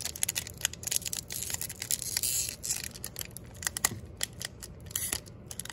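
Foil wrapper of a Pokémon booster pack crinkling and tearing open by hand: a quick, irregular run of crackles and rips.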